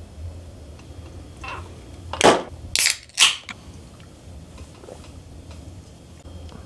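Aluminium soda cans being cracked open by their pull tabs: three sharp pops about half a second apart, a second or two in, with a fainter one just before.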